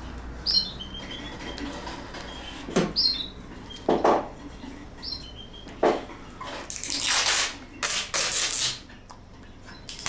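Adhesive tape being pulled off the roll and torn, with several short rasping pulls, the longest and loudest a few seconds before the end. A few short bird chirps sound in the background.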